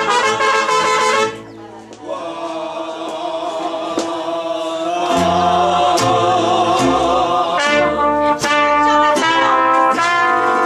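Mariachi band playing, led by trumpets. The music breaks off briefly about a second in, then a long held note with vibrato comes in and deep bass notes join it. Loud sustained trumpet chords follow near the end.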